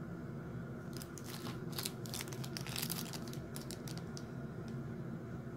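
Small resealable plastic bag with an enamel pin inside, crinkling as it is handled: a run of quick crackles from about a second in until past the middle, over a low steady hum.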